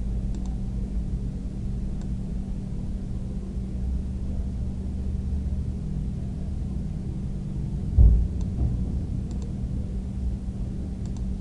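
Steady low hum and rumble of the recording background, with a few faint mouse clicks and a dull thump about eight seconds in.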